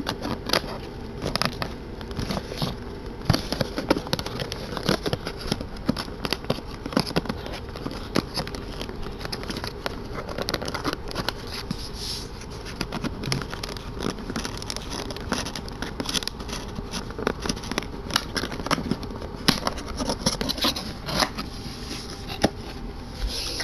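Cardboard box and packaging being handled and opened: irregular clicks, taps, scrapes and rustles.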